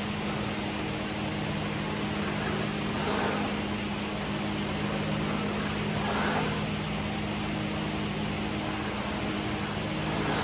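Steady mechanical hum with a few constant low tones, with three short rushes of noise about three seconds apart.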